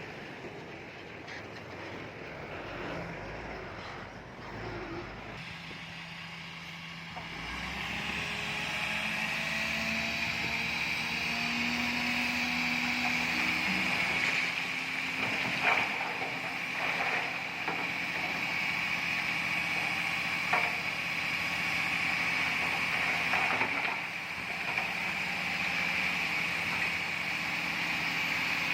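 Diesel engine of heavy earthmoving machinery running steadily, growing louder about eight seconds in, with a steady high whine and a few sharp clanks.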